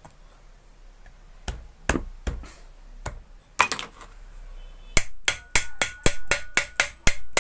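Sharp metal taps on the body of a half-horsepower domestic booster water pump as its housing is knocked into seat. A few scattered knocks come first, then from about five seconds in a quick, even run of about four taps a second, each ringing briefly.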